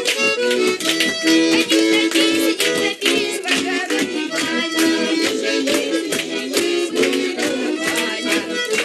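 Lively traditional folk music led by an accordion, with fiddle, over a quick, steady beat.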